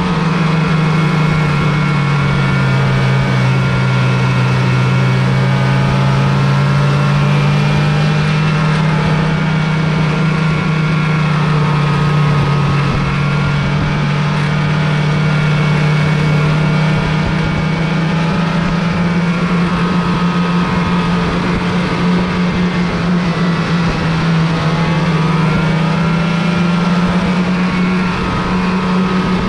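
Snowmobile engine running steadily under way. The engine note falls slightly a couple of seconds in and rises again, and shifts a little again near the end, as the speed changes.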